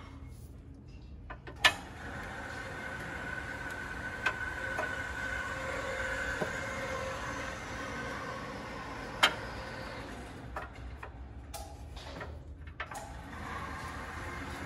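A few sharp metallic clicks as a spacer is worked into a steel crossmember hole with a telescoping magnet pickup tool. A steady mechanical drone with a faint whine runs beneath them and eases near the end.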